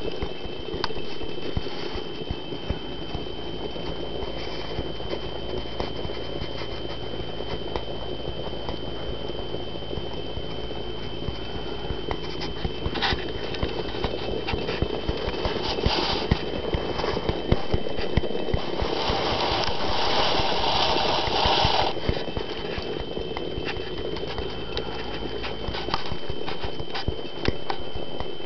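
Glass jar of water heating over a pop-can alcohol stove burning gas-line antifreeze: irregular ticking and pattering as the water warms toward a boil and small bubbles form. A louder rushing noise comes in for about three seconds past the middle.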